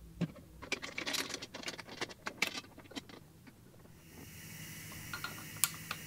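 Metal clanks and clicks as the steel lid is set on a resin pressure pot and its clamps are worked. From about two-thirds of the way through comes a steady hiss of compressed air, with one sharp click of the air-line coupling near the end.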